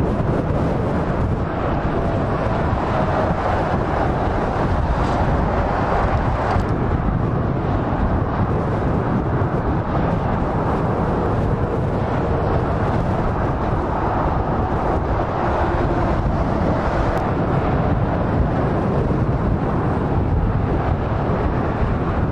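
Steady motorway traffic: heavy lorries and cars passing at speed, a continuous rush of tyre and engine noise that stays at an even level.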